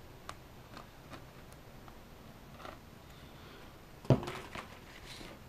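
Faint clicks and rustles of hands handling EPP foam plane parts and a plastic glue bottle on a wooden workbench, with one sharp knock about four seconds in.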